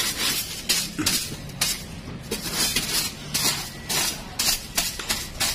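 An irregular run of sharp clinks and knocks of hard objects, about two to three a second.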